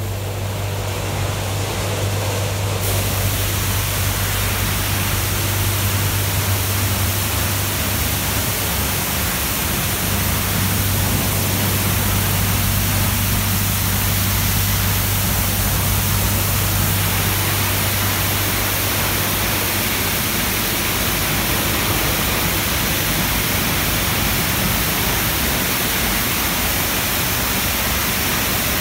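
Christ Genius Vitesse rollover car wash's high-pressure jets spraying water against a car: a loud, steady hiss that starts about three seconds in, over a low machine hum that fades out about halfway through.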